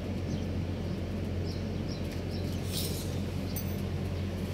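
Steady low background hum, with a few faint high bird chirps over it.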